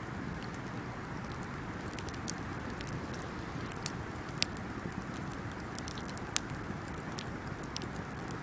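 Wood fire burning with a steady low rustle and scattered crackles and pops, two sharper pops about four and a half and six and a half seconds in.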